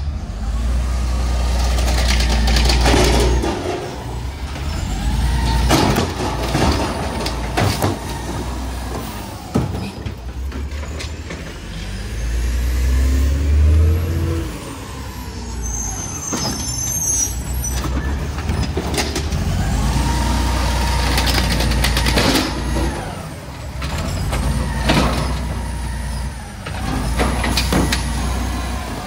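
Diesel garbage truck engine revving again and again as the truck packs out a load of yard waste, one rev rising in pitch about halfway through, with sharp mechanical clanks between the revs.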